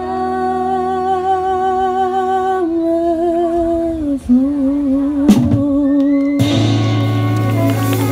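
Live Portuguese folk music: a singer holds long notes with vibrato over a plucked-string accompaniment, with a short knock about five seconds in. About six seconds in, the band comes in with a fuller sustained chord.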